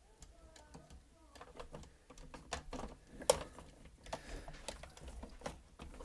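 Irregular clicks and taps of hard plastic parts being handled and fitted back together on an iRobot Roomba robot vacuum, with one sharper click a little over three seconds in.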